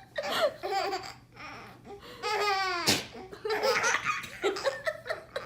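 A baby laughing in repeated bursts, with a longer falling laugh about two to three seconds in.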